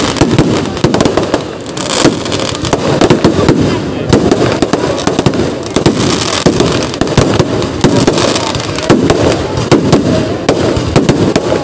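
Kerala festival fireworks (vedikkettu) going off in a dense, unbroken barrage of firecracker bangs and crackling, many reports a second.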